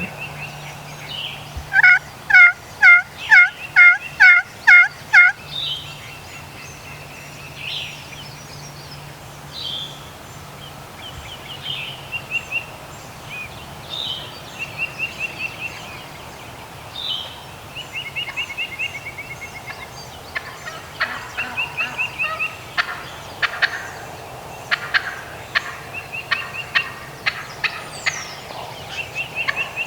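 Wild turkey yelping: a run of about eight loud, evenly spaced yelps. After it come small songbirds chirping and trilling, and in the last third a scatter of sharp clicking notes.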